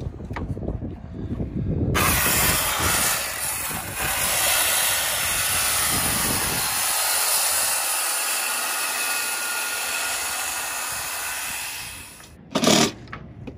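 Cordless circular saw running and cutting through a deck board, a steady loud whine and hiss that lasts about ten seconds before stopping. A short loud burst follows just after it stops.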